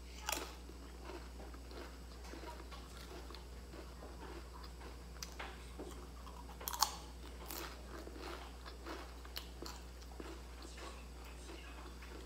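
Crispy fried crackers (bánh chiên giòn) being bitten and chewed. A sharp crunch comes just at the start and the loudest bite a little past halfway, with many small crackly crunches of chewing between.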